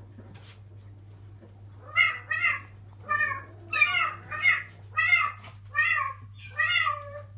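Bengal kitten meowing repeatedly. About ten short, high meows start about two seconds in, often in quick pairs.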